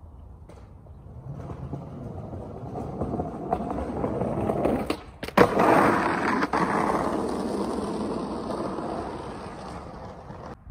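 Skateboard wheels rolling on a coarse aggregate path, growing louder as the board approaches and passes close by about halfway through, then fading away. A few sharp clacks as it goes by.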